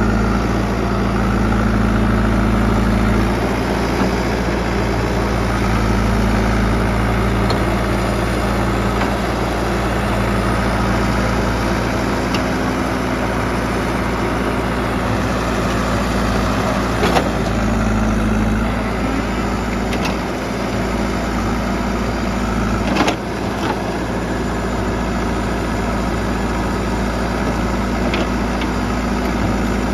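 JCB 3DX backhoe loader's diesel engine running steadily, with a couple of short sharp knocks, one about halfway through and another a few seconds later.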